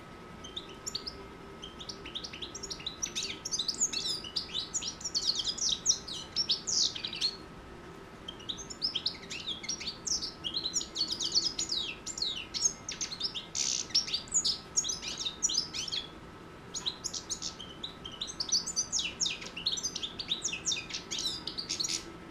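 Six-month-old European goldfinch singing: rapid, twittering song in three long bouts with short pauses about seven and sixteen seconds in. A faint steady hum runs beneath.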